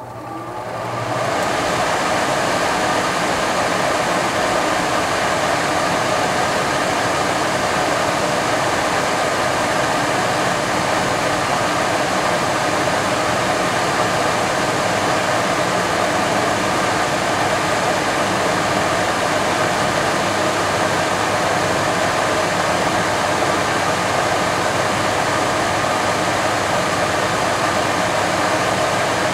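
Nordyne wall furnace's blower running on its new Genteq 1/6 hp motor: it spins up to speed over the first second or two, then gives a steady rush of air.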